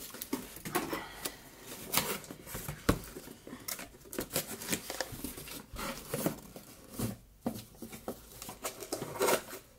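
Cardboard gift boxes and their contents being handled and moved about: an irregular run of rustles, scrapes and light knocks.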